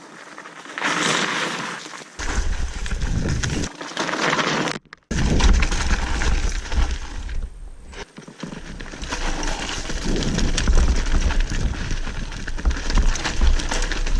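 Mountain bike riding a rough trail: tyres crunching and skidding over dirt and stones, with the frame and chain rattling and wind rumbling on the camera microphone. The sound breaks off abruptly several times where clips are cut together.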